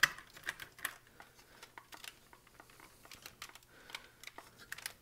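Light clicks and taps from the parts of a large Transformers figure as they are handled and fitted together during transformation, the sharpest at the very start and just before a second in, then smaller scattered clicks.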